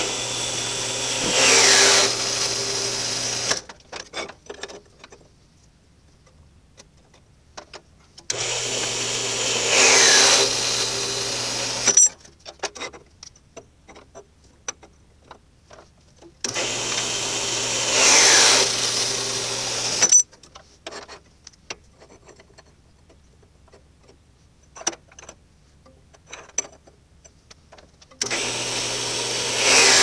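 Electric metal-cutting saw with an induction motor cutting 1-inch steel tubing into short pieces: three runs of about three and a half seconds each, plus a fourth starting near the end. Each run has a steady hum, grows louder in the middle with a whine that falls in pitch as the blade goes through the tube, then stops abruptly. Light clanks and clicks between the cuts as the tube is moved and clamped in the vise.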